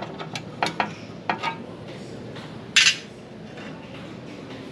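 Metal clinking and knocking as steel pieces and a welding clamp are handled, a quick run of sharp clinks in the first second and a half. A single louder, harsh rasp of about a third of a second follows just under three seconds in.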